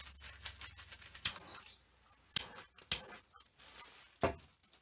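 A few sharp clicks and one duller knock near the end, spaced irregularly, from tools being handled on a work table.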